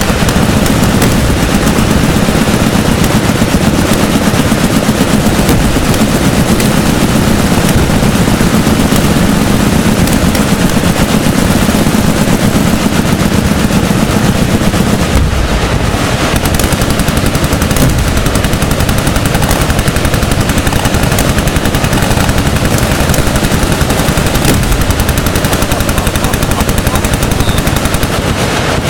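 Several machine guns firing together in long, overlapping automatic bursts, a dense continuous rattle of shots.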